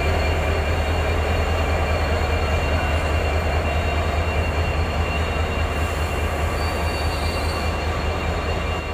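WDP4B diesel locomotive's 16-cylinder EMD two-stroke engine running with a loud, steady low drone and a faint high whine above it.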